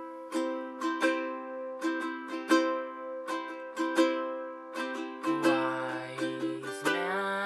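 Ukulele with f-holes playing slow plucked chords that ring out one after another. About five seconds in, a man's voice begins singing over them.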